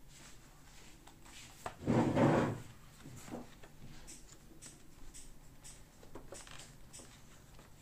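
A razor's presentation box being handled and opened: a scraping slide about two seconds in, then light clicks and taps as the contents are handled.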